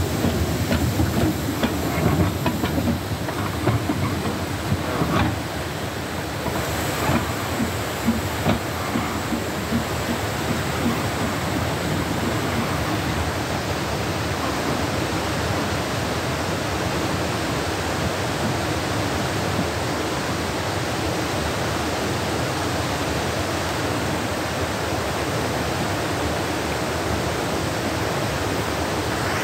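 Steady hiss of steam from Talyllyn Railway No. 7 'Tom Rolt', a narrow-gauge steam tank locomotive standing with steam up, with scattered metallic knocks in the first several seconds.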